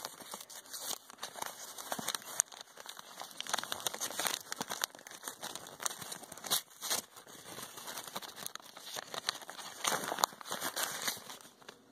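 Lined notebook paper crinkling and rustling as a handmade, folded-paper card pack is unfolded by hand, with irregular sharp crackles.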